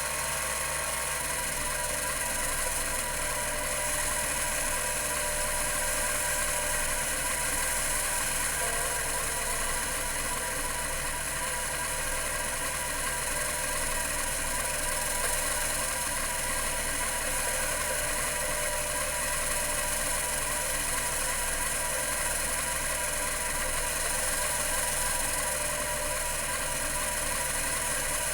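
Computer Memories Inc. CM-5412, a two-platter 10 MB full-height 5.25-inch MFM hard drive, running with its platters spinning at 3600 RPM. It makes a steady whir of several constant tones over a high hiss.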